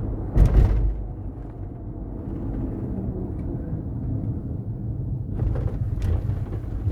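Drivetrain hum and road rumble inside a moving GMC Denali, a steady low drone that has persisted even after the differential was replaced and that the occupants suspect comes from the transfer case. A sharp knock comes about half a second in, with a few lighter knocks near the end.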